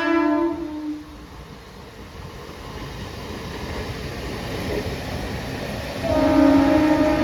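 Mumbai local train horn: a long steady blast that ends about a second in, then the noise of the train growing steadily louder, then another long horn blast starting about six seconds in.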